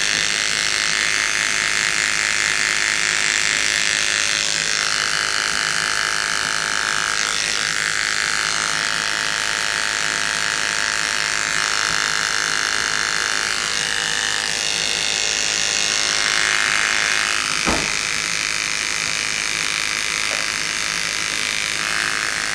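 Electric hair clippers buzzing steadily as they clip the fur of a sugar glider to prepare a wound for stitching. The tone of the buzz changes now and then as the blade works, and there is one short click about eighteen seconds in.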